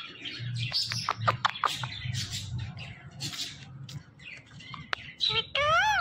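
Indian ringneck parakeet chattering with quick, short chirps and clicks, then a louder call that rises and falls near the end.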